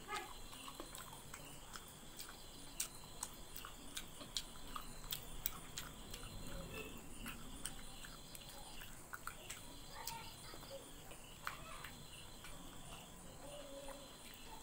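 Quiet hand-eating sounds: fingers mixing rice and curry on a plate and soft chewing, heard as scattered small clicks and smacks over a faint steady high hum.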